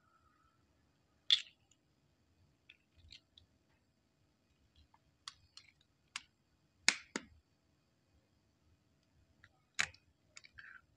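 Hen eggs being cracked and separated by hand over small ceramic bowls: scattered sharp clicks and knocks of eggshell, the loudest about a second in, a quick double knock around the middle and another near the end, with fainter ticks between.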